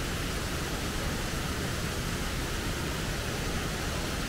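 Steady rush of a waterfall, an even wash of falling water.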